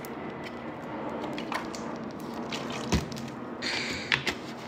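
Drinking water from a large plastic bottle: small wet gulps and swallows with the plastic crinkling, and a single sharp knock about three seconds in.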